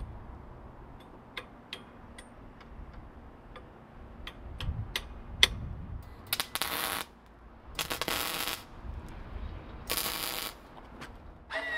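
Three short bursts of arc-welding crackle, each under a second, as a bolt cap is welded onto the end of a steel pipe drop rod. Scattered light clicks and taps of metal come first.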